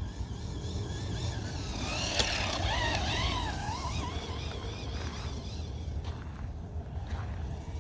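Radio-controlled truck's electric motor whining, its pitch wavering up and down with the throttle for a couple of seconds in the middle, over a steady low rumble.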